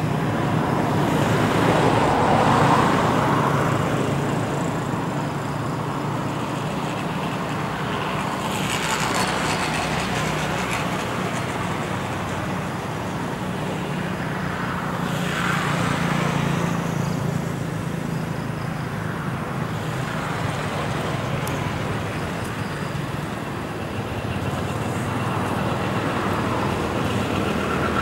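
Road traffic: vehicles pass one after another, about five times, each swelling and fading over a steady low engine hum.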